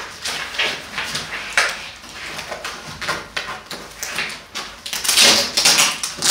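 Hook-and-loop (Velcro) mounting straps on a bicycle rack bag being handled and pulled apart: a run of short rasping rips and fabric rustles, loudest and densest about five seconds in.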